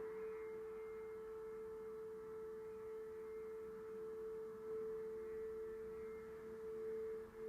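A steady, pure ringing tone held at one mid pitch with faint higher overtones, swelling slightly in loudness now and then.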